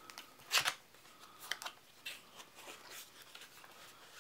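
Cardboard packaging of a trading-card starter deck being opened and handled: one sharp crackling scrape about half a second in, then a run of lighter scrapes and taps as the contents are worked out of the box.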